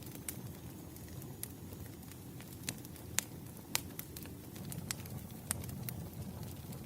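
Fireplace fire crackling: irregular sharp pops and snaps over a low, steady rumble.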